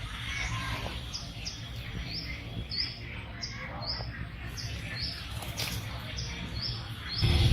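A small bird chirping repeatedly: short high chirps, about two a second, over a steady low rumble.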